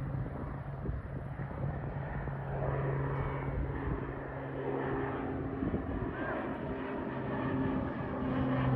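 Beech 1900C twin-turboprop climbing out after takeoff: a steady propeller drone with a low hum, growing louder toward the end as the aircraft comes nearly overhead.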